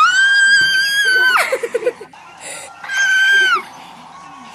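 A young girl's high-pitched screams: a long held shriek that leaps up in pitch right at the start, then a second, shorter one about three seconds in.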